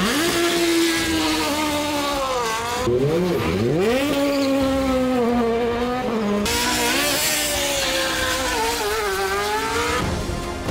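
Race car engines revving hard. The pitch climbs at the start, drops sharply and rises again about three seconds in, then holds high. About six seconds in it cuts abruptly to another car whose engine pitch wavers and rises.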